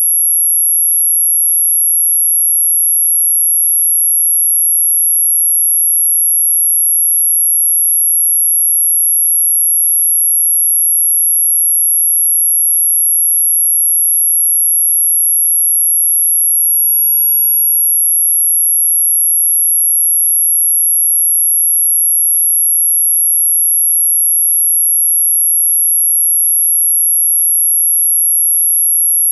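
Anti-mosquito repeller tone: a single steady, very high-pitched pure tone held without change.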